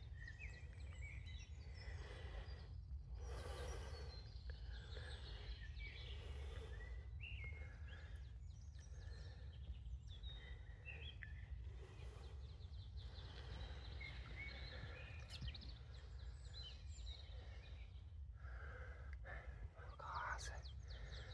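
Outdoor woodland ambience: birds chirping and calling here and there over a low, steady rumble, with a few short rustling or breathing sounds.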